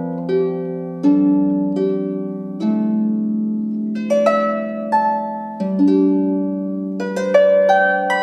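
Harp playing a slow, simple, calming melody: plucked notes and chords ring out and overlap as they fade, with a new note or chord about once a second.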